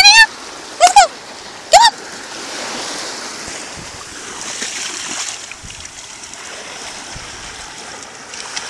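Three short, loud, high-pitched yips from a small Pomeranian-type dog, about a second apart, followed by the steady wash and splash of shallow surf.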